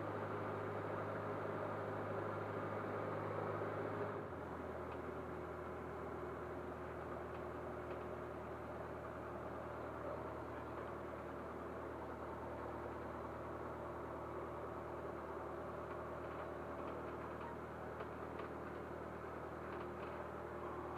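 Cessna 152's four-cylinder Lycoming O-235 piston engine running steadily on the ground. A little over four seconds in its note drops to a lower, quieter idle as the power comes back, and it stays there.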